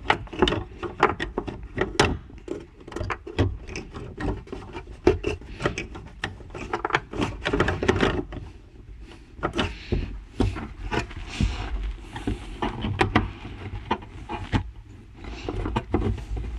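Many irregular clicks, knocks and rubbing sounds of plastic and rubber as a Honda Civic's new fuel pump assembly, with its seal, is pressed and worked by hand into the fuel tank opening.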